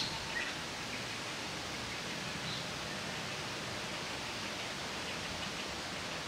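Steady, even outdoor background hiss, with a short high blip at the very start and a faint high chirp about two and a half seconds in.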